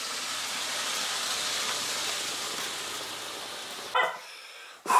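A car going by on the street: a steady rush of tyre and engine noise that fades after about three seconds. A brief high-pitched squeak comes near the end.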